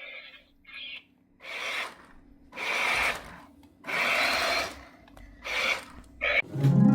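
Remote-control toy spider scuttling in about six short rasping bursts, each under a second, with brief pauses between.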